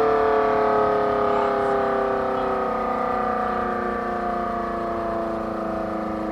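SD10 electromechanical outdoor warning siren winding down at the end of its test: a chord of several tones sliding slowly and steadily lower in pitch as the rotor coasts down, growing gradually quieter.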